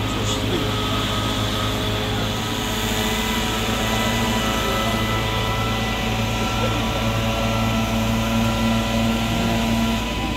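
Flatbed tow truck's engine running steadily, a constant low drone with a thin whine over it; the lower part of the drone drops out near the end.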